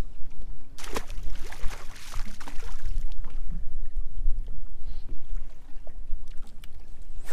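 A bass dropped back into the lake beside the boat, splashing for about a second and a half starting about a second in, over a steady low rumble of water and wind around the hull.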